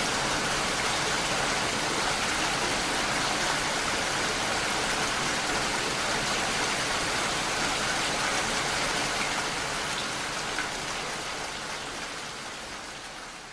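Steady rain, an even hiss of many drops falling, that fades out over the last few seconds.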